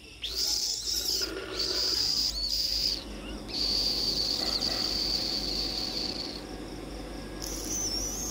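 Insects trilling, a steady high-pitched buzz that starts and stops in stretches of one to three seconds, the longest running about three seconds near the middle.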